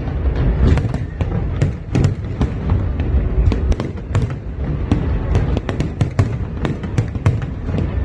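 Fireworks going off in a dense barrage: many sharp cracks and pops, several a second and irregular, over a continuous low rumble of booms.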